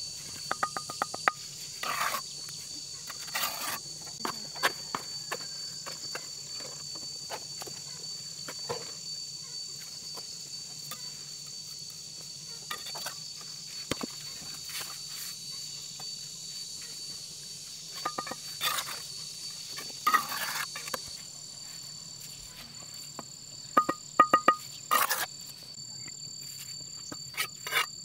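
Steady high-pitched insect trilling, crickets or cicadas, runs throughout. Irregular sharp knocks and clattering break in over it, with a few quick runs of rapid ticks; the loudest of these come near the end.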